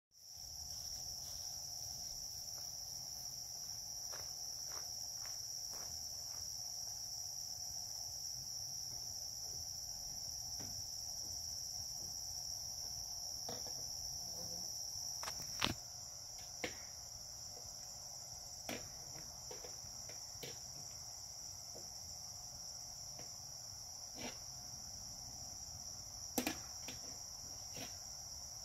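Night chorus of crickets, a steady high-pitched trill, over a fainter, lower steady drone. Scattered sharp clicks sound through it, the loudest about halfway and near the end.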